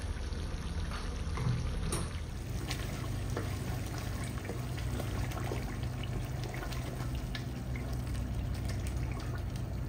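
Chicken curry simmering in a metal pot, a wet bubbling and popping, while a wooden spoon stirs yogurt into the sauce. A steady low hum runs underneath.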